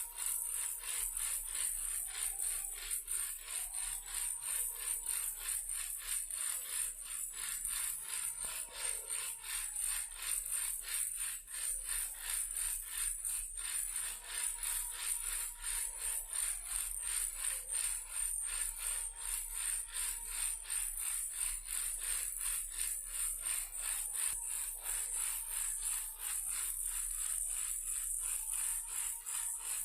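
Toy car rattle being shaken: a steady, fast rattling of loose pieces inside, several shakes a second without a break.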